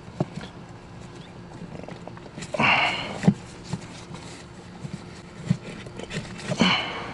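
Plastic knocking, clicking and scraping as a cabin air filter is pushed and worked by hand into the tight-fitting filter housing of a Mercedes-Benz GL450 (X166), with a louder rustling scrape about two and a half seconds in and again near the end.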